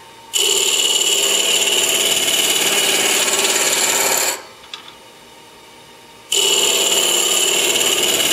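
A 3/4-inch spindle gouge scraping a spinning wood cylinder on a mini-lathe: a loud, steady rasping cut with a high whine through it, the scraping technique used to rough the blank round. It stops for about two seconds midway, then starts again.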